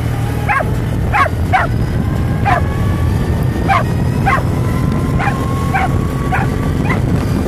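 Dog barking and yipping in short, repeated calls, about a dozen of them, over a steady low rumble.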